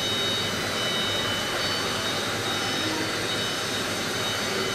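CNC lathe's motors running, a steady whirring noise with a faint high whine, as the machine travels back to the previous work point.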